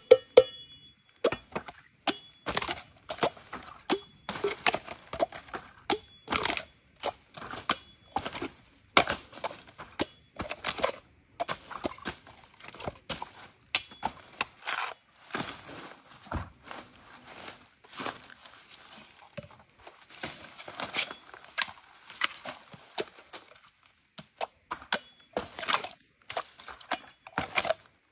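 Bamboo shoots being cut and chopped with a blade: a run of irregular sharp chops and cracks, about two or three a second, with a stretch of scraping, crunching noise in the middle.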